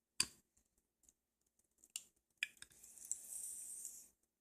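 Parts of a plastic Transformers action figure being swivelled and moved by hand: a few sharp plastic clicks, then about a second and a half of rubbing noise near the end.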